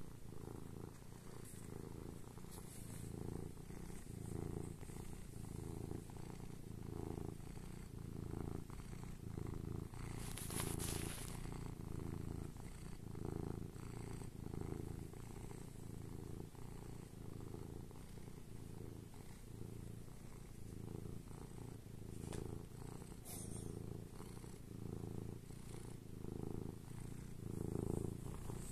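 A seal-point cat purring steadily at close range while it kneads a fleece blanket. The purr swells and fades about once a second as it breathes in and out.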